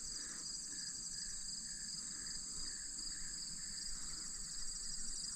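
Crickets and other field insects trilling in a high, continuous chorus, with a softer chirp repeating about twice a second.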